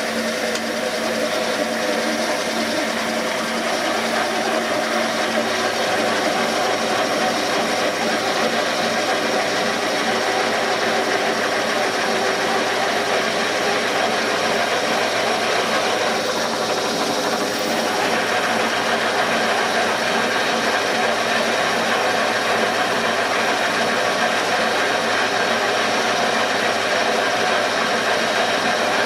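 Seat-and-guide machine's spindle running a 3/16-inch high-speed steel drill bit into a broken bolt in a cast iron Ford 302 cylinder head, steady and unbroken, coring out the bolt; the bolt is soft enough for a high-speed steel bit rather than carbide.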